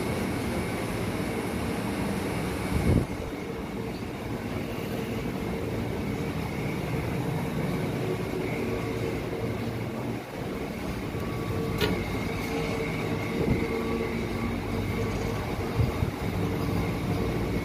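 Steady hum inside a stationary Tokyo Metro 5000 series electric train car: its air conditioning and onboard equipment running, with several steady tones in the hum. A sharp thump about three seconds in, and a few lighter knocks later on.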